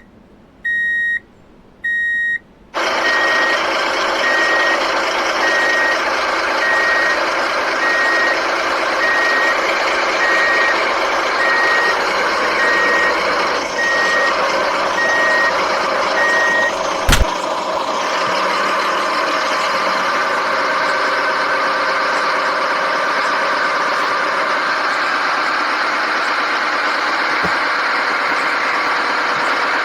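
Truck reversing alarm beeping about twice a second over steady truck engine noise. The beeping stops with a click a little over halfway through, and the engine keeps running.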